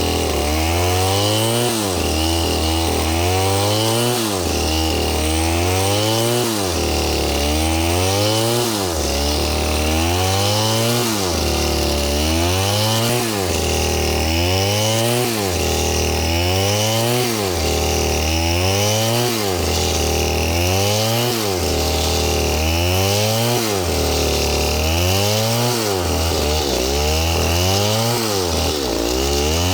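Two-stroke STIHL chainsaw cutting into a palm trunk. The engine pitch rises and falls about every two seconds as the saw is revved and loaded in the cut.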